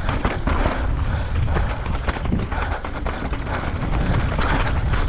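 Wind buffeting the microphone over the steady crunch and rattle of a mountain bike riding fast on a dry, dusty trail.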